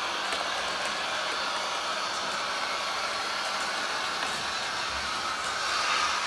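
Model Class 55 Deltic locomotive's onboard LokSound sound decoder playing a steady Napier Deltic diesel engine sound through its small speaker while running on analogue DC, mixed with the running noise of the train on the track.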